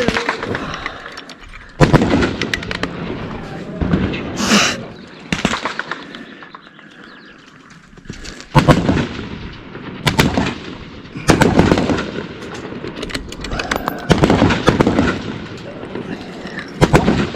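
About seven loud gunshots, irregularly spaced a second to a few seconds apart, each trailing off in a rolling echo.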